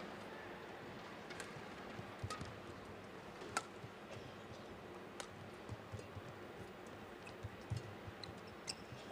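Badminton rally: sharp strikes of rackets on a shuttlecock, irregularly spaced about a second apart, over a low steady arena hush.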